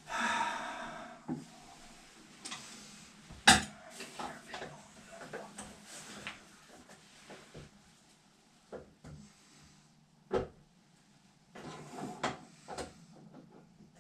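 Hand tools clanking and scraping against toilet fittings: a scraping rustle at the start, then scattered knocks and clicks, the sharpest about three and a half seconds in and another near ten seconds.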